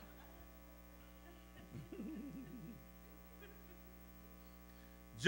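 Steady electrical mains hum from the church sound system, with a faint voice murmuring briefly about two seconds in.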